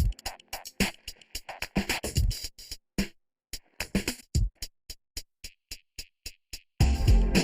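Electronic background music with a drum-machine beat: a quick run of sharp percussive clicks, a brief drop-out about three seconds in, then a full beat with heavy bass comes in near the end.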